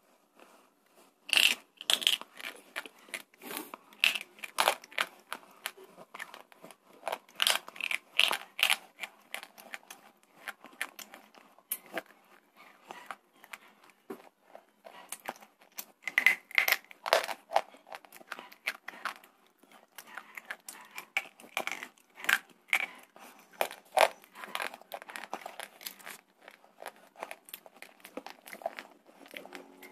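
Close-miked chewing of slate bar coated in thick red clay paste: dense, irregular crunching and crackling, with some loud crunches clustered about a second or two in and again around the middle.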